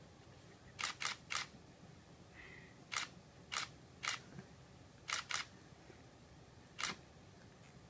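Camera shutter clicking about nine times at irregular intervals, some in quick runs of two or three, as photos are taken.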